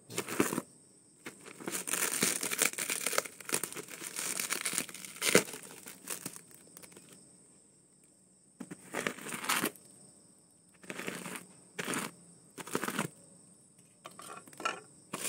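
Black plastic parcel wrapping, bound with packing tape, being torn open: crinkling and ripping in irregular bursts with short pauses in between.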